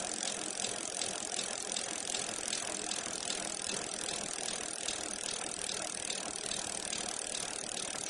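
Bicycle freehub ratchet clicking steadily, as a wheel coasts.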